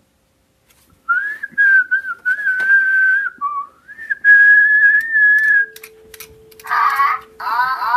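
A person whistling two long, steady held notes to an interactive DigiDino toy dinosaur, the first about a second in and the second after a short dip in pitch. Near the end the toy answers with electronic warbling chirps.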